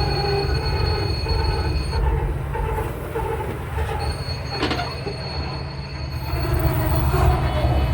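Air starter on an EMD SD70ACe's diesel engine cranking it over with a loud low rumble and a whine, without the engine catching: a no-start, which the owner puts down to a dead electric fuel pump.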